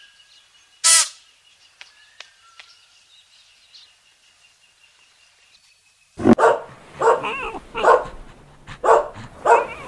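A golden retriever puppy barks repeatedly from about six seconds in: short, high, yappy barks, several a second apart. Before that there are only faint outdoor sounds, a thin steady high tone and one short sharp call about a second in.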